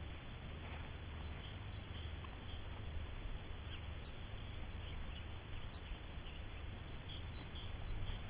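Quiet outdoor ambience: a steady low rumble of wind on the microphone, with scattered faint, brief high chirps.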